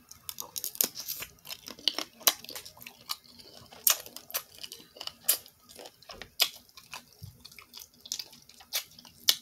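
Close-miked eating of boiled crawfish: wet chewing and mouth smacks with shells cracking and being peeled by hand, heard as many irregular sharp clicks and crackles.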